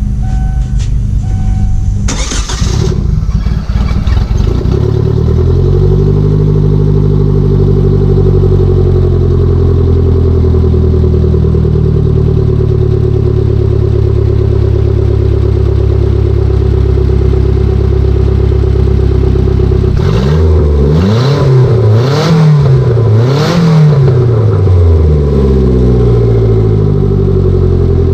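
1999 Kia Sportage four-cylinder engine starting after a fuel filter replacement: a loud burst as it catches about two to four seconds in, then a steady idle. Near the end it is revved in three quick blips and drops back to idle.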